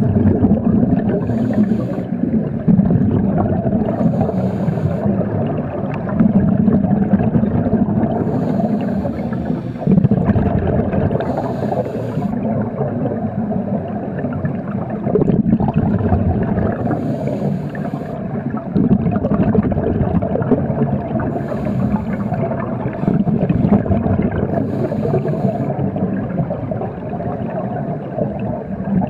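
Scuba regulator breathing recorded underwater: a brief hiss as each breath is drawn, every few seconds, and between them a loud rush of exhaled bubbles.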